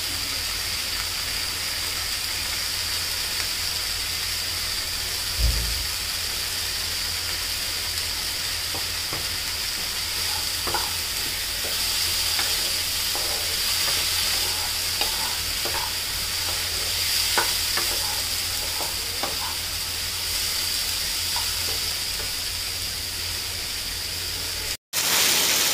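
Sprouted moong beans with onion and green chilli sizzling in a kadai while a wooden spatula stirs and scrapes them, over a low steady hum. A single dull thump about five seconds in.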